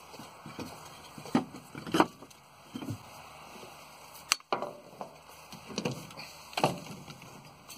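A series of irregular knocks and thumps, about seven of them, spaced half a second to a second or more apart. The loudest comes about two seconds in, and another sharp one just after four seconds.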